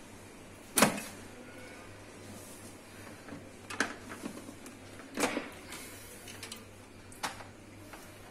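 Hands handling the plastic housing and cables of an RO water purifier: a few sharp clicks and knocks, the loudest about a second in, over a faint steady low hum.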